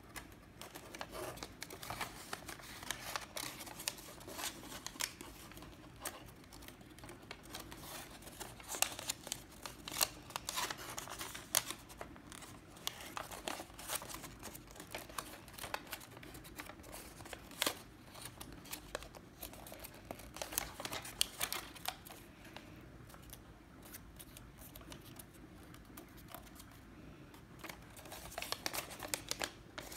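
A sheet of origami paper being folded and creased by hand: rustling and crinkling with many short, crisp clicks as creases are pressed, thinning out for a few seconds near the end.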